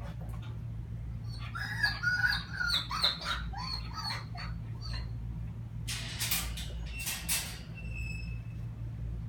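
Young dog whining in a run of short, high, wavering squeaks for a few seconds, then two brief rattling noises about six and seven seconds in.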